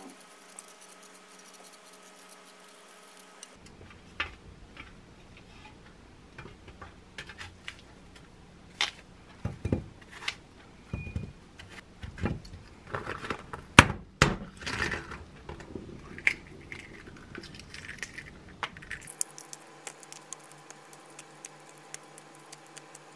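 Kitchen knife cutting a raw apple into pieces that drop onto a ceramic plate: a run of crisp crunches, knocks and clinks, loudest about two-thirds of the way through. Near the end, the fine crackle of a boiled egg's shell being peeled.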